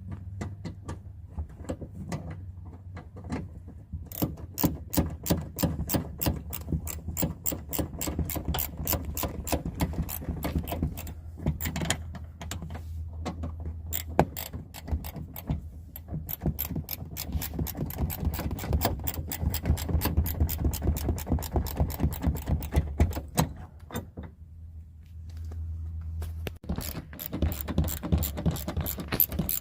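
Hand ratchet clicking in long rapid runs, about four clicks a second, with short pauses, as it turns the screws that fasten a new metal inside door handle. A steady low hum runs underneath.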